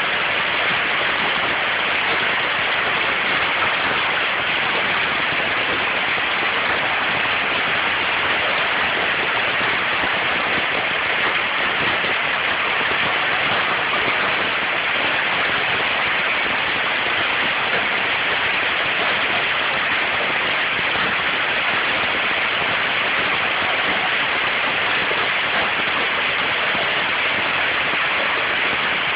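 Hail falling steadily: a dense, even rush of hailstones striking surfaces, with no let-up.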